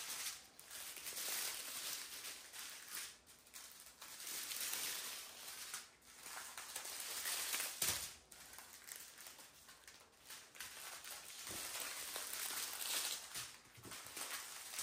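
Small plastic bags of diamond-painting drills crinkling and rustling as strips of them are handled and spread out, with a sharper crackle a little past halfway.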